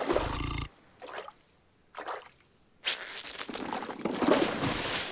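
Cartoon water sound effects: a splash at the start, two short drip-like plops about one and two seconds in during a quiet pause, then a longer wash of splashing water from about three seconds in.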